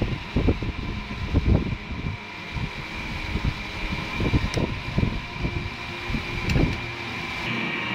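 A steady mechanical hum with a few constant high whining tones, under irregular low thumps and rumbles.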